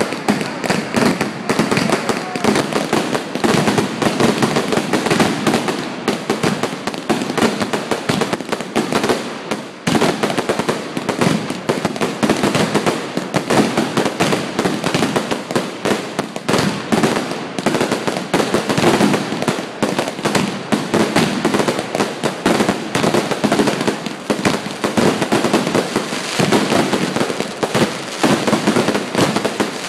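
Fireworks going off in a dense, continuous barrage of rapid bangs and crackles, with a brief lull about ten seconds in.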